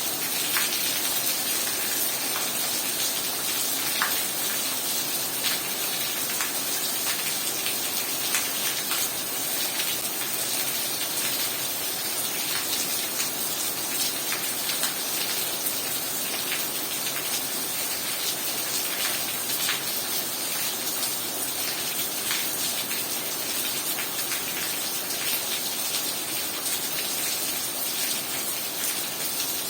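Heavy rain falling steadily, a dense hiss with scattered sharp drop impacts close by.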